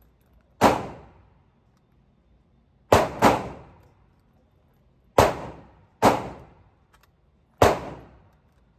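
Gunshots echoing in an indoor shooting range: six shots at uneven intervals, two in quick succession about three seconds in, each ringing off briefly.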